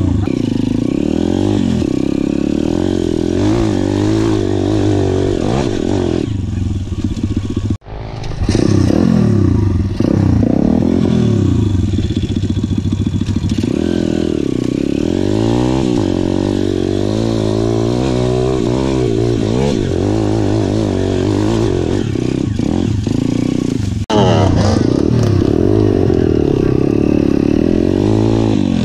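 Dirt bike engine revving up and down under throttle while riding, its pitch rising and falling again and again. The sound breaks off sharply for a moment about eight seconds in and again near the end.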